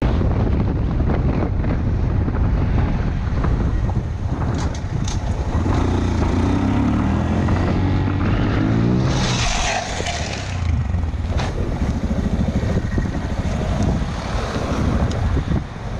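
Honda Monkey's small single-cylinder motorcycle engine running under wind noise on a helmet camera, its pitch rising and falling with the throttle about six to nine seconds in, with a short burst of harsher noise just after.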